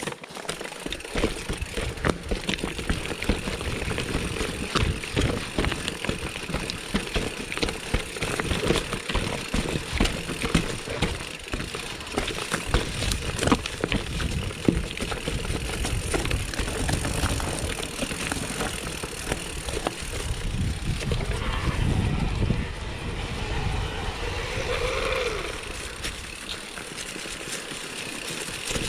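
Mountain bike descending a rough trail: tyres running over dirt and loose stones, with many sharp clicks and rattles from the bike over bumps and a low rumble of wind on the microphone.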